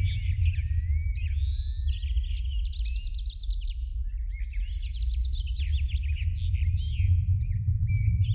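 Songbirds singing, a busy run of quick chirps, slurred notes and trills, over a steady low rumble of wind buffeting the microphone.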